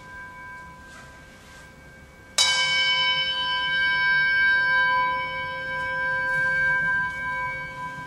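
Singing bowl struck once about two and a half seconds in, ringing on in several steady, clear tones. Before the strike, a fainter ring is already sounding.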